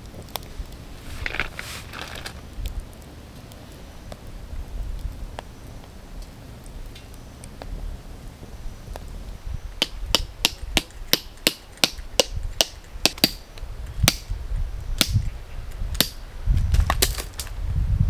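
Low wind rumble on the microphone, with a quick run of sharp knocks or taps, about three to four a second, starting a little past halfway.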